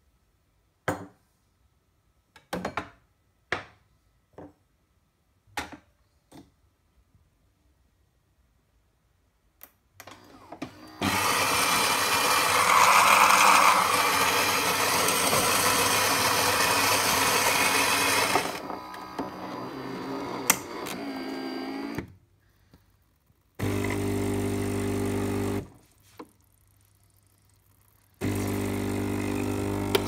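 Philips HD8844 super-automatic espresso machine working through a cycle. There are a few scattered clicks, then a loud grinding noise for about seven seconds. Near the end a steady low motor hum starts and stops twice.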